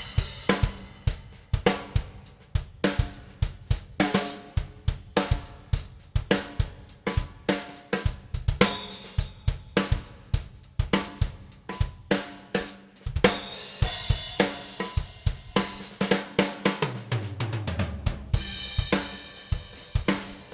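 Pearl Session Custom maple drum kit with Zildjian cymbals played to a steady beat: kick, snare and hi-hat, with cymbal crashes several times and a fill down the toms near the end.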